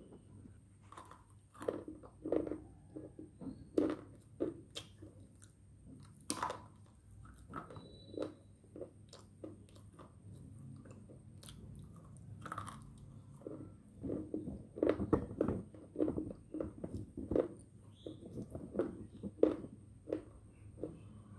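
Close-up biting and chewing of crunchy coloured slate sticks: irregular crisp crunches, a sharper crack about six seconds in, and a dense run of chewing crunches in the second half.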